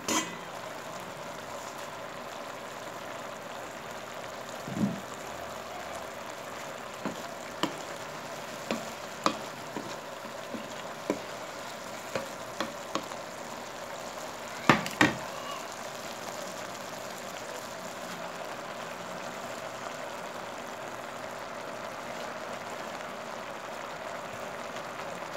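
Squash pieces sizzling steadily in a little oil and water in a non-stick pan. A clank of the steel lid coming off opens it, and a wooden spatula knocks against the pan a dozen or so times while the pieces are stirred, with two louder knocks about halfway through.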